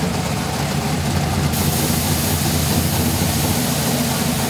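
Drag car's engine idling, joined about a second and a half in by a loud steady hiss from a nitrous purge venting a white jet up through the hood.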